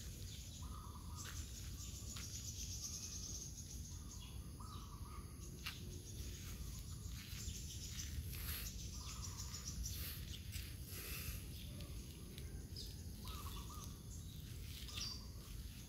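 Outdoor ambience: small birds chirping now and then, short calls repeating every second or two, over a steady low background rumble.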